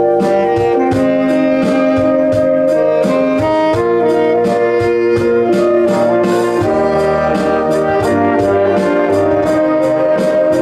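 A live small band playing an instrumental arrangement: saxophones and trombone carry the tune in held notes over a steady drum-kit beat.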